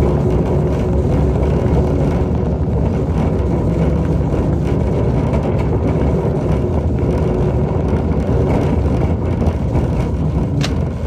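Steady low rumble of a moving vehicle, with a faint steady hum above it.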